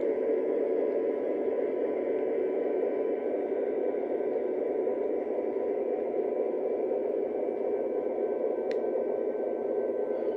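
Model train freight cars rolling on a loop of track, a steady rumble of wheels on rail with a faint steady hum above it. One sharp click about nine seconds in.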